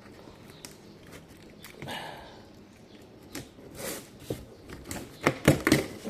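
Cardboard box and packaging being handled while unboxing: scattered clicks, rustles and knocks, with a few louder knocks about five seconds in.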